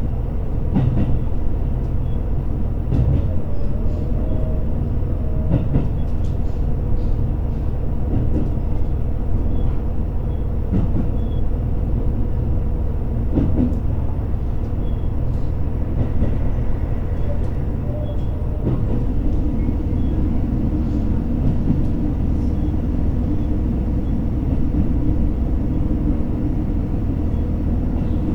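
Interior running sound of an H100-series diesel-electric railcar: a steady low rumble with occasional clicks and knocks. About two-thirds of the way through, a steadier humming tone joins in and carries on.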